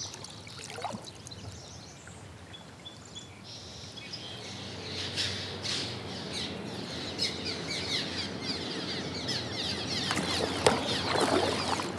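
A colony of cliff swallows calling, many short overlapping chirps that grow busier partway through. A few paddle splashes come in near the end.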